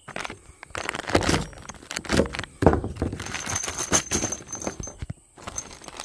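Clear plastic bag of steel bolts, lock nuts and washers being picked up and handled, the loose hardware clinking and jingling inside while the plastic crinkles, in an irregular run of clicks and rustles.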